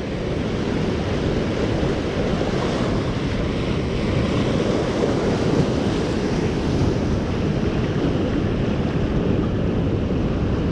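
Small waves washing up and running back over a sandy beach, a steady surf wash, with wind buffeting the microphone.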